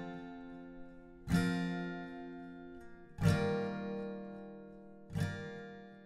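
Background music: acoustic guitar strumming slow chords, three in all, about two seconds apart, each left to ring and fade.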